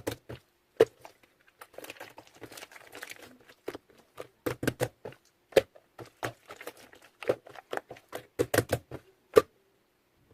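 Hands handling plastic packaging and small containers: an irregular run of sharp clicks and taps, with a stretch of soft crinkling about two seconds in. It stops short of the end.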